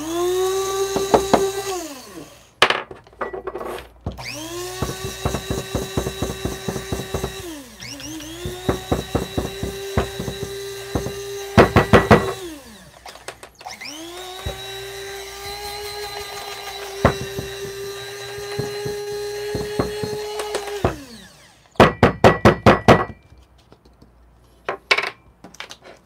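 Electric blade coffee grinder running in four pulses, each spinning up to a steady high whine and winding down, with the beans ticking and rattling against the cup and lid. The grounds are being reground because they were too coarse for espresso. Quick runs of loud knocks come in the middle and again near the end.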